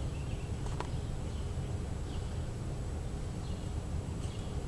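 Outdoor ambience: a steady low rumble with a few faint, short bird chirps scattered through, and a single faint click about a second in.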